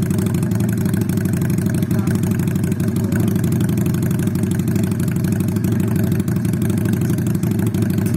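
V-twin cruiser motorcycle idling steadily through a newly fitted custom exhaust.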